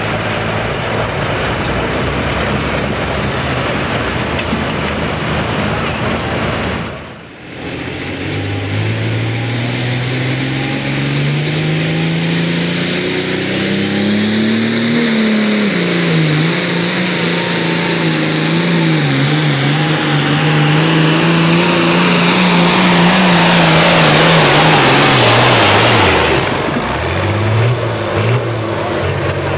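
Turbocharged diesel pulling tractors at full throttle under load. A short stretch of one tractor's engine is cut off about a quarter of the way in. Then the next tractor's engine climbs in pitch as it gets going, holds high and wavers as it drags the sled, grows loudest near the end, and drops away sharply as the throttle comes off.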